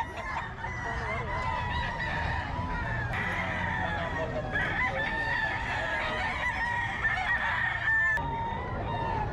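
Several gamecocks (fighting roosters) crowing over one another, one crow running into the next so the crowing never stops, with some clucking.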